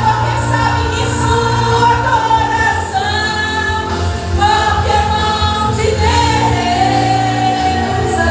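A church vocal group singing a gospel hymn together, in long held phrases, over steady instrumental accompaniment.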